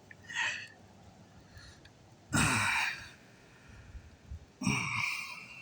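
A man breathing out heavily, twice: short rushing breaths about two seconds and four and a half seconds in, with a fainter one near the start.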